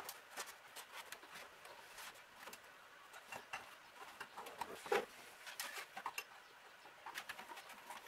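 Faint rustling and scattered light clicks of a wiring harness being handled and fed along a car's firewall, with a louder knock about five seconds in.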